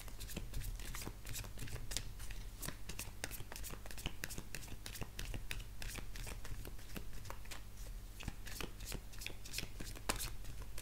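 Oracle cards being shuffled by hand: a dense, irregular run of soft card flicks and slaps, over a steady low hum.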